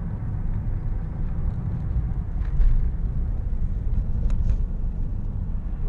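Steady low road rumble and engine noise heard inside a moving car's cabin, briefly louder about two and a half seconds in.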